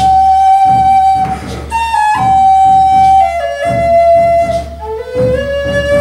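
Native American-style wooden flute playing a slow melody of long held notes that step between pitches, over a recorded accompaniment with a steady, even pulse underneath.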